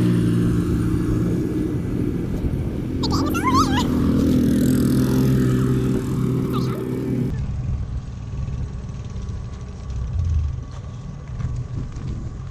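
A car running on the road, a steady low engine and road hum. A brief high wavering sound comes about three seconds in. About seven seconds in the sound cuts abruptly to a quieter steady hum.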